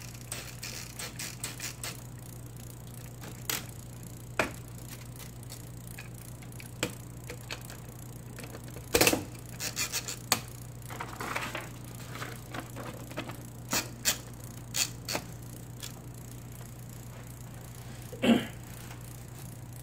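IBM Selectric golf-ball typewriter on a Korean-English typeball, its motor humming steadily while single keys are struck now and then, each giving a sharp clack. The strikes are irregular and spaced out, with a cluster about nine to ten seconds in and a loud one near the end.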